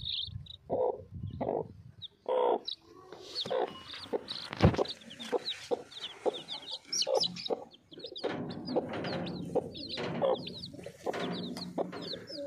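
A brood of young chicks peeping steadily in short, high, falling cheeps, with the mother hen clucking low among them. One sharp tap about halfway through.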